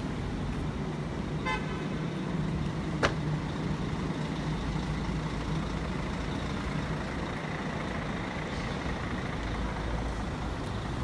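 Street traffic: a steady rumble of vehicle engines, with a short beep about one and a half seconds in and a sharp click about three seconds in.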